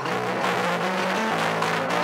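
Live blues-rock band playing: a bass guitar line moving between notes under guitar, with drums and cymbals keeping the beat.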